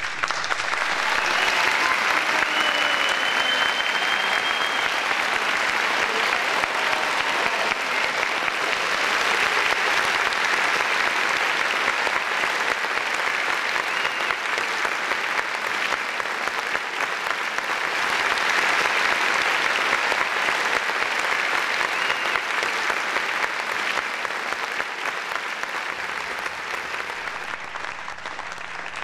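Large audience applauding, a long, loud, steady round of clapping that tapers off near the end.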